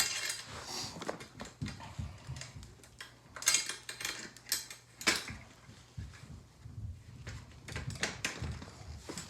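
Irregular metal clicks, taps and knocks as a BMX bike's rear wheel is handled and fitted back into the frame, with two louder knocks about three and a half and five seconds in.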